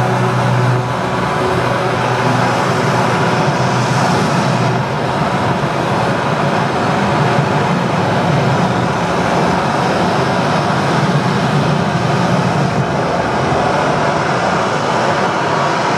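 Sound-effects soundtrack of a building projection show over loudspeakers: a loud, steady, dense rushing rumble with a low hum underneath.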